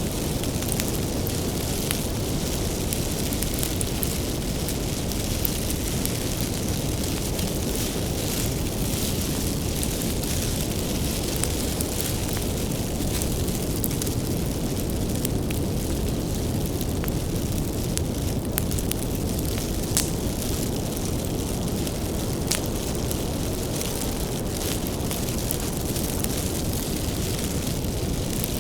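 Bonfire of firewood burning with a steady low rush of flames and scattered sharp crackles and pops of the wood.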